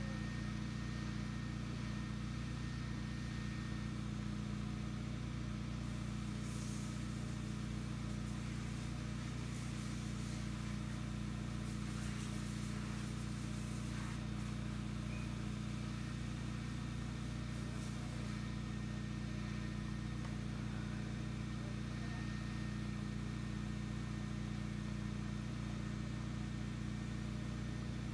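Sino Star S9 touchless car wash machine running: a steady low machine hum, with a high hiss that swells a few times.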